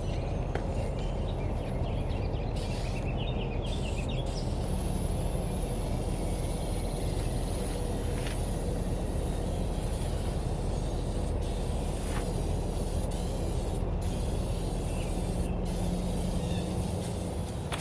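Spray can of plastic adhesion promoter spraying primer onto a plastic car bumper: a steady hiss that starts a few seconds in and runs on with brief breaks between passes, over a steady low rumble.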